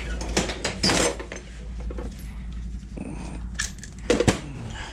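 Metal hand tools and sockets clinking and clattering as they are rummaged through in an open steel tool-chest drawer, with a few sharper knocks about a second in and near the end.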